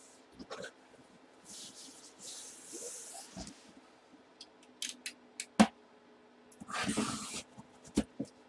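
Box and packaging being handled and opened: hissy rustling of packing material in two stretches, with a few sharp clicks and knocks in between.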